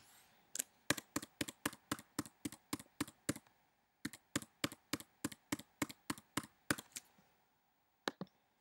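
Typing on a computer keyboard: a password entered as about four keystrokes a second in two runs with a short break between them. A quick pair of clicks follows near the end.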